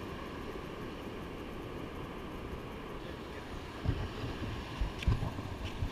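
Steady, muffled wash of wind and surf heard through a GoPro's waterproof housing, with a few low thumps from handling near the end.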